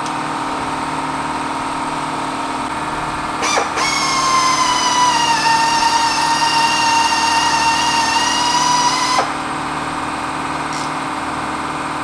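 Right-angle drill boring a pin hole into the steel nose of a 5.7 Hemi crankshaft through a drill guide, lubricated with WD-40. About three and a half seconds in it starts a steady high whine that dips slightly in pitch under load, then rises and cuts off sharply about nine seconds in.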